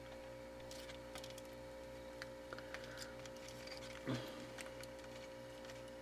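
Small clicks and taps of hard plastic model-kit parts being handled as a beam scythe is fitted into a Gundam model's hand, with one soft thump about four seconds in, over a steady faint electrical hum.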